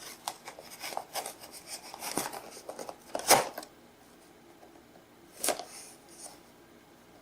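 A small cardboard product box being handled and pried at to get it open: a quick run of rustles, scrapes and clicks, with a louder sharp crack about three seconds in and another about five and a half seconds in.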